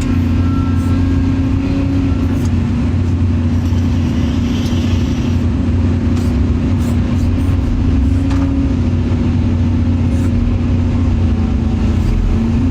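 Heavy diesel engine of an excavator running steadily with a deep, even drone while it loads clay.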